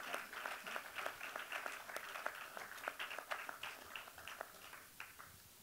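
Audience applauding, a dense patter of hand claps that thins out and stops about five seconds in.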